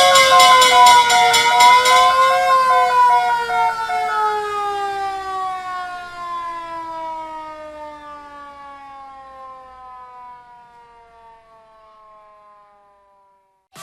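Fire engine siren wailing up and down together with a rapidly ringing fire bell; the bell stops about four seconds in, then the siren slides steadily down in pitch and fades away as the fire engine passes into the distance.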